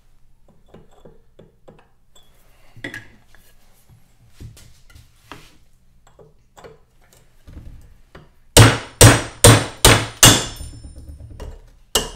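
Ball-peen hammer striking a chisel against a seized freewheel on an electric dirt bike's rear hub to split its cut outer ring. Light taps and handling clicks come first, then five hard metallic strikes about two a second, and one more near the end.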